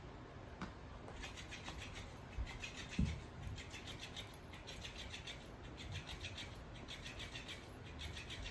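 A floppy fish cat toy scuffing and rubbing against a tile floor in quick, repeated strokes as a cat paws and bites at it, with a couple of soft thumps between two and three seconds in.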